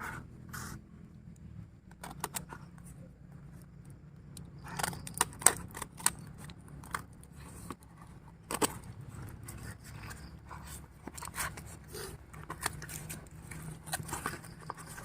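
A shipping package being cut and torn open by hand: irregular snips, scrapes and crinkles of the packaging, with a few sharper clicks, the loudest about five and a half seconds in and again about eight and a half seconds in.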